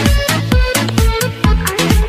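Electronic dance music with a steady kick drum, about two beats a second.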